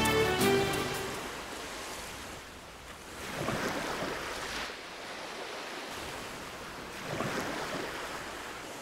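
Sea waves washing up on a beach, the surf rising and falling twice, about four seconds apart.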